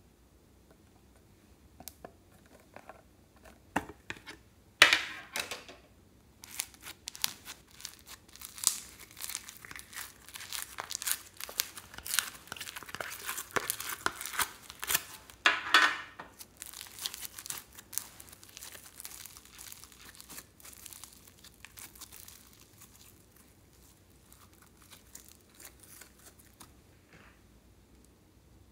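Purple foam-bead slime (floam) being dug and pulled out of its box by hand: dense crackling and popping of the foam beads. It starts with a loud crackle about five seconds in, is busiest in the middle, and thins out near the end.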